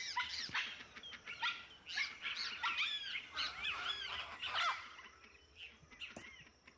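Birds chirping in many short, arching whistled calls that overlap at first, then thin out and fade about five seconds in.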